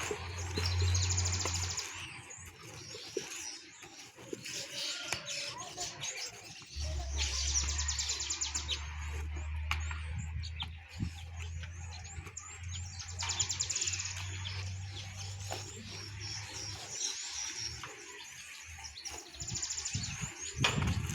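Birds chirping outdoors, with a rapid high trill lasting about a second and a half repeating four times, over a low steady rumble.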